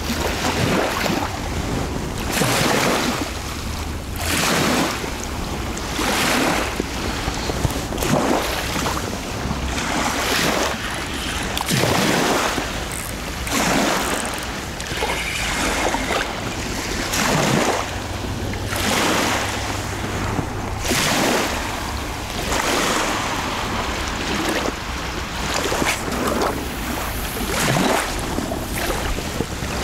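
Small waves washing against the reservoir bank in a regular surge about every two seconds, with wind rumbling on the microphone.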